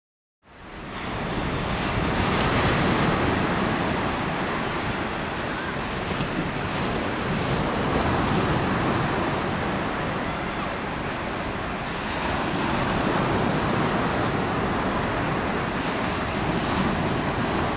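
Choppy waves breaking on the shore, with wind gusting on the microphone.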